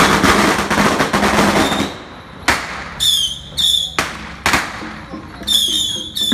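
A string of firecrackers crackling rapidly for about two seconds, then single sharp bangs every half second or so, with high metallic ringing strikes in between.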